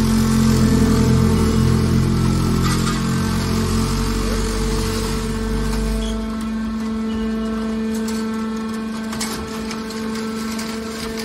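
Hydraulic scrap metal baler running: its hydraulic pump hums steadily while the ram pushes a compressed bale of scrap out of the chamber. A heavy low rumble drops away about six seconds in, once the bale is out, leaving the steady hum and a few sharp clicks.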